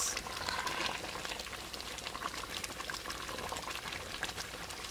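A pot of beans boiling on the stove: steady bubbling with many small, quick pops.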